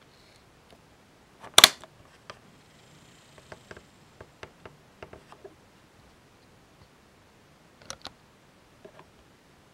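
N gauge model locomotive running slowly on its track, giving irregular light clicks and ticks as it rolls, with one sharp, louder click about a second and a half in and a faint thin whine around the third second.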